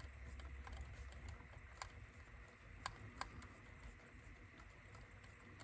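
Near silence with a few faint clicks, the clearest about two and three seconds in, from the plastic gears and door arm of an Akai GX-F91 cassette deck's door mechanism being turned by hand.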